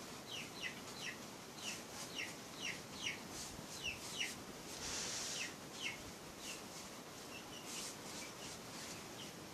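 Birds chirping: a run of short, high, downward-sliding chirps, about two a second, thinning out after about six seconds. A brief soft hiss comes about five seconds in.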